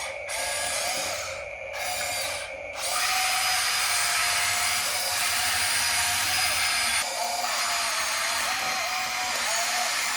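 Electric drive motors and gearboxes of a Huina remote-control excavator toy whirring as it is worked. There are two brief dips in the first few seconds, then a steady whine from about three seconds in.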